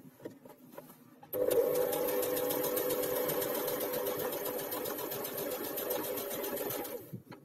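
Electric sewing machine stitching steadily through an elasticated trouser waistband. It starts about a second in after a few faint clicks, and stops shortly before the end.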